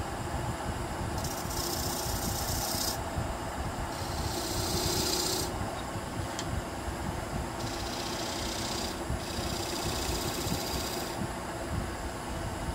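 Wood lathe running with a steady hum while a bowl gouge cuts the outside of a spinning white pine bowl: four cutting passes, each a second or two of shaving hiss, with short pauses between them.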